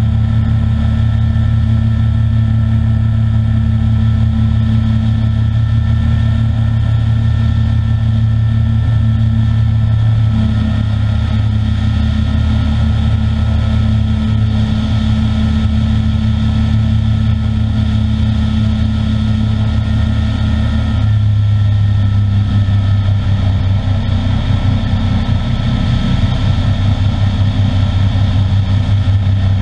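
DAR Solo ultralight's engine and propeller droning steadily in flight, with wind rushing over the open cockpit. The engine note shifts slightly about ten seconds in and drops a little about two-thirds of the way through.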